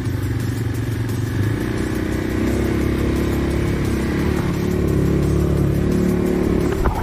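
ATV (quad bike) engine running steadily at low trail speed, its pitch rising a little about two seconds in, with a brief rattle near the end.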